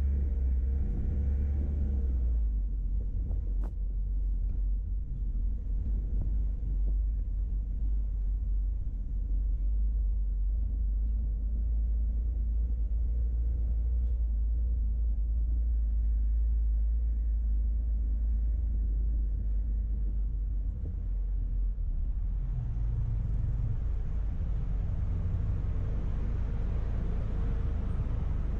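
A car driving along a road, with a steady low rumble of engine and road noise. The engine note stands out more in the first couple of seconds and again from about 22 seconds in.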